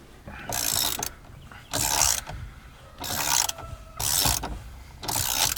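Socket wrench with a hex bit ratcheting in five strokes, about one a second, backing out the steering wheel's center bolt once it has broken loose.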